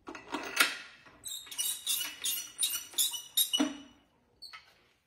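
Speed-handle socket wrench turning a bell-housing bolt: metal scraping, then a quick run of about eight short squeaky metallic clicks, about three a second, ending in a single clunk.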